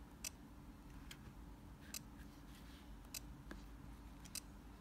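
Short, faint clicks from key presses on an alarm control panel's touch keypad, about six at uneven intervals while a menu is stepped through.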